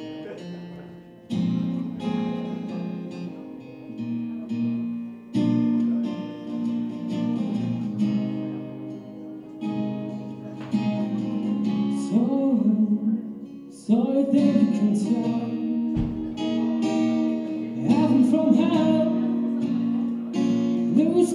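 Acoustic guitar strummed in chords, with a man's voice singing along from about halfway through.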